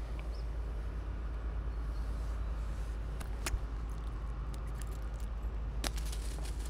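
Steady low rumble on the microphone, with a few sharp clicks and light knocks from hands handling a caught chub and its lure. One click stands out about halfway through and another near the end.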